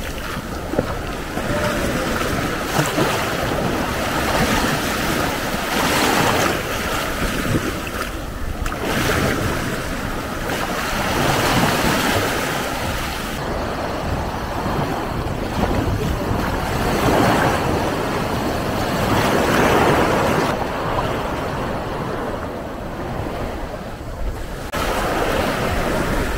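Ocean surf: small waves breaking and washing up a sandy beach, the wash swelling and falling back every few seconds.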